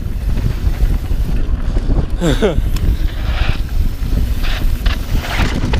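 Wind buffeting the camera microphone over the steady rumble and rattle of a mountain bike's tyres rolling fast down a dry dirt singletrack, with a short falling cry about two seconds in.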